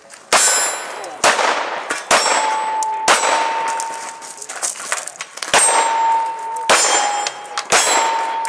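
Seven pistol shots, in two groups with a gap of about two and a half seconds between them. Steel targets ring with a sustained metallic tone after several of the hits.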